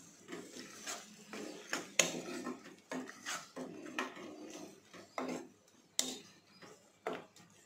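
Steel ladle stirring a wet tomato and chilli-powder masala in a nonstick pot: repeated scraping against the pan, with sharp clinks of metal on the pot, the loudest about two seconds in and again about six seconds in.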